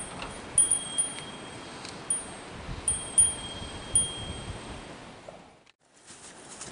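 Wind chime ringing: about eight irregular pings at a few fixed high pitches, each ringing on briefly, over a light rushing background. The sound drops away almost to nothing near the end.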